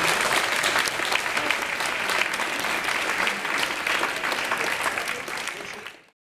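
Audience applauding: dense clapping from a roomful of people that tails off and cuts to silence about six seconds in.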